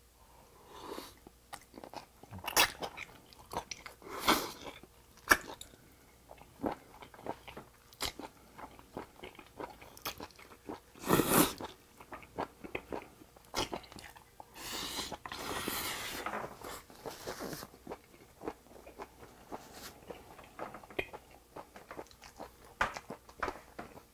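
A person biting and chewing straw-fire-grilled octopus (nakji horong-i) that is wound on a wooden chopstick, with close wet mouth sounds at irregular intervals. A louder sucking noise about eleven seconds in as the octopus is drawn off the chopstick with the lips.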